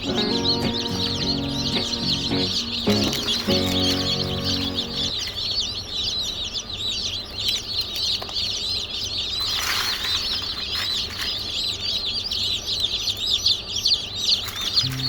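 A crowd of chicks peeping nonstop, many high, short cheeps overlapping. About ten seconds in there is a brief rustle or flutter.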